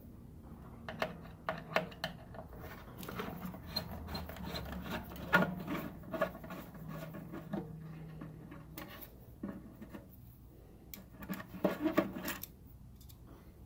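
Handling noises: irregular rubbing with scattered clicks and light knocks, with a denser cluster of knocks shortly before the end.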